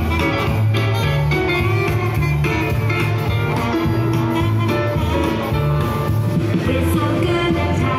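Music played over a PA loudspeaker, with a steady line of repeating bass notes.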